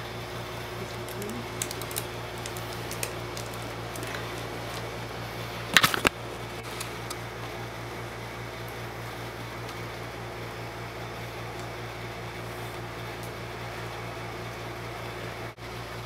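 Steady fan-like hum, with a few light ticks and a short clatter of handling about six seconds in.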